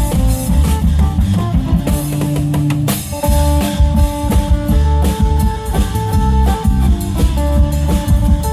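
Isan klong yao long-drum band playing a lively beat under an amplified phin (Isan plucked lute) melody, with strong bass.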